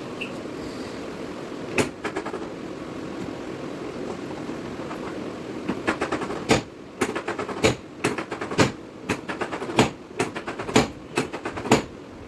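Chiropractic drop table clunking during drop-technique adjustments: one sharp knock about two seconds in, then from about six seconds a run of sharp knocks, several with a quick rattle after them, over a steady background hiss.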